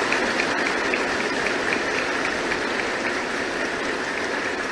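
Members of parliament applauding: steady, dense clapping from a large assembly.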